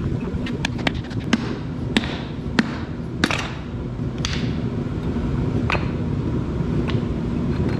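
Hand tools and metal parts clicking and knocking at irregular intervals, about ten sharp taps, while an electric motor is taken apart. Under them is a steady low background rumble.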